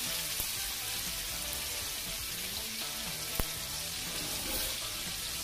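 Steaks searing in bacon fat and melting butter in a hot pan: a steady sizzle, with one sharp click about three and a half seconds in.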